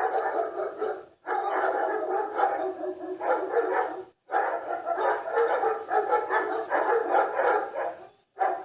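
Dogs barking rapidly, several barks a second, in three stretches separated by brief abrupt silences.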